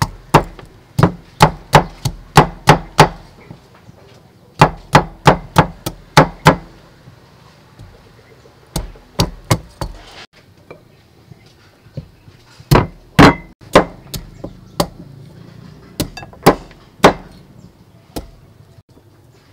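Heavy cleaver chopping on a round wooden chopping block. Sharp chops come in runs of several strokes, about three a second, with short pauses between the runs.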